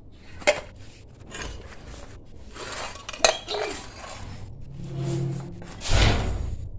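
Aluminium Yamaha RX-King engine covers clinking and knocking as they are handled and set down on a concrete floor: a few sharp clinks, with a louder knock about six seconds in.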